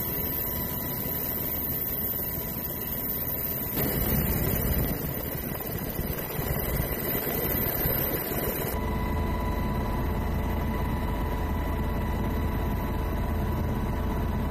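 Steady engine and rotor-type drone of an aircraft heard from on board, with a heavy low rumble. The noise changes character abruptly about four and nine seconds in, where the footage is cut between clips.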